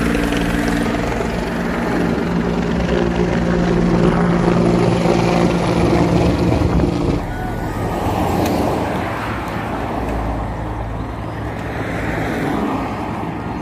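Race traffic on the road: a steady engine drone for about the first seven seconds, then a support car driving past, its tyre and engine noise swelling and fading.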